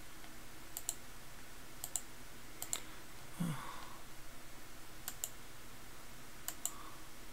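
Computer mouse clicking: sharp clicks in close pairs, five times, spread over several seconds.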